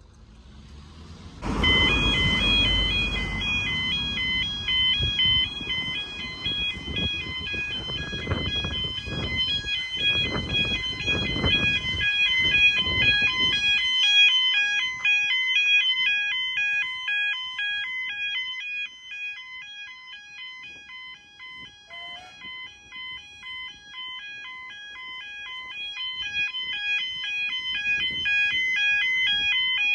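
British level-crossing warning alarm sounding: the electronic alternating two-tone 'yodel' that warns of an approaching train. It starts about a second and a half in and keeps repeating steadily, with a loud low rumble under it for the first half.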